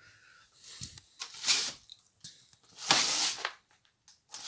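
Rustling and swishing handling noise: two loud, short swishes about a second and a half apart, with fainter rustles between them and another starting near the end.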